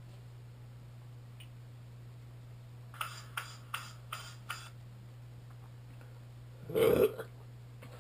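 A person burps once, briefly, near the end. Before the burp there are five quick light clicks, about half a second apart.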